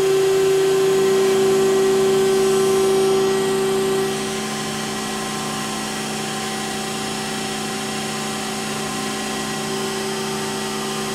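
Chevalier 1020 AD surface grinder running, a steady machine hum with a strong high tone. A lower tone joins about a second in, and the sound eases a little about four seconds in.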